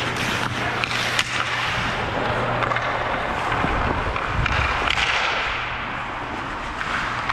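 Ice hockey skates scraping and carving on ice, with a few sharp stick or puck clicks, the clearest about a second in.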